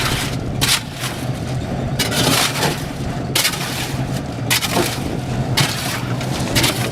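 Construction machinery with its engine running steadily, overlaid by repeated loud crunching and scraping of stone or earth about once a second.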